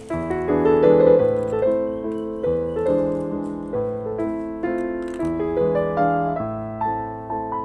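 Background piano music: a gentle melody of plucked-sounding notes over low bass notes.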